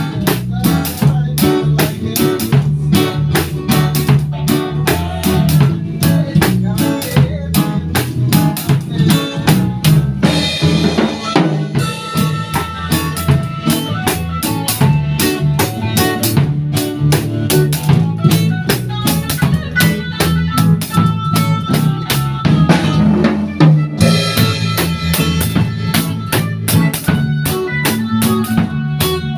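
A band playing with a drum kit: a steady beat of bass drum and snare over a sustained bass line and other instruments. Cymbals wash over it about ten seconds in and again near the end.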